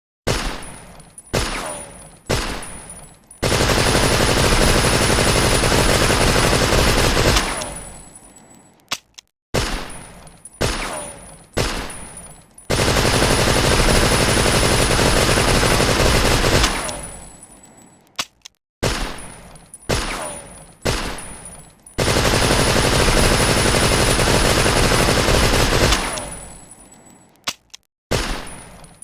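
Tommy gun (Thompson submachine gun) sound effect: three short bursts of automatic fire, then one long burst of about four seconds that dies away slowly. The same sequence plays three times.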